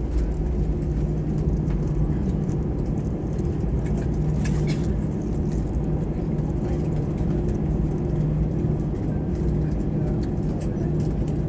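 Steady airliner cabin noise on the approach to landing: a constant rumble of engines and airflow with a steady low hum running through it.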